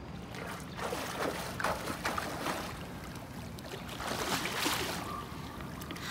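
Pool water splashing as a swimmer surfaces and kicks and strokes through it, in two spells: from about a second in, and again about four seconds in.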